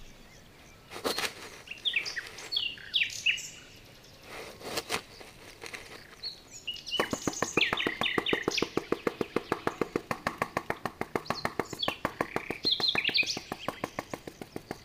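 Birds chirping in the background over scraping of a small trowel through damp sand, a few separate strokes at first, then a fast even run of strokes at about six a second from about seven seconds in.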